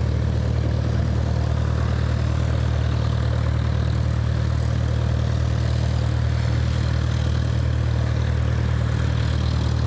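Steady low engine hum at an even level, with no change in pitch or loudness.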